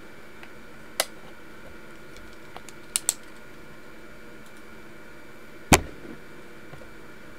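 Sharp plastic clicks and taps from a pen being handled close to the microphone: one click, then a quick double click, then a louder knock with a dull thud, over a faint steady hiss.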